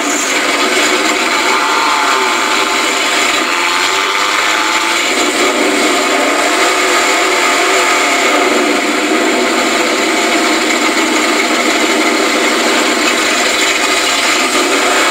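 Mud truck engines running hard, a loud, steady motor drone whose pitch wavers up and down.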